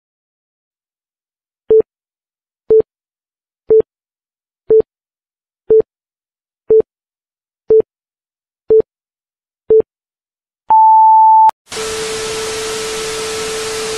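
Countdown sound effect: nine short electronic beeps, one a second, then one longer, higher beep. It is followed by a TV-static hiss with a steady tone underneath.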